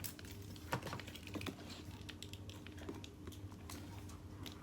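Faint, irregular clicks and light taps from a handbag being handled, over a low steady hum.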